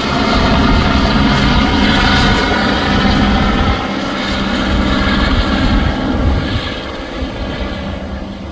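Helicopter running loudly and steadily, growing fainter over the last couple of seconds.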